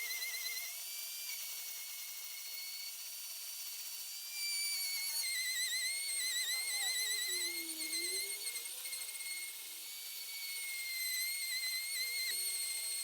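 A small high-speed power tool whining as it works wood, its pitch wavering and sagging now and then as the load changes.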